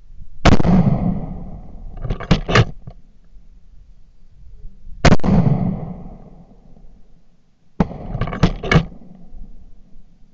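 Three gunshots fired at a wild boar, each followed by a long rolling echo. The second comes about four and a half seconds after the first, the third about three seconds later. After the first and third shots come quick clusters of sharper cracks.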